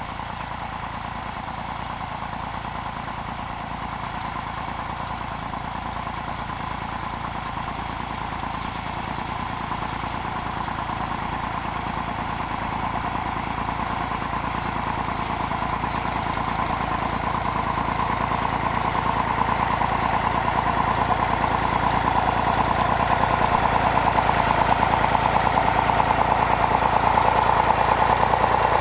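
Vintage Massey Ferguson 35 tractor engine running steadily while it tows a harrow, growing louder as the tractor comes closer.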